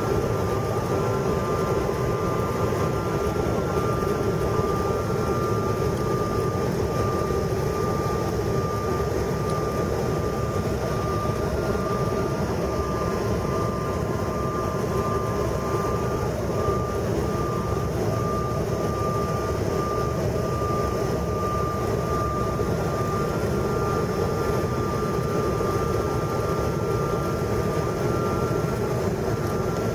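Steady cabin noise of a jet airliner on descent with its flaps extended: an even drone of engines and rushing air with a thin, steady whine above it.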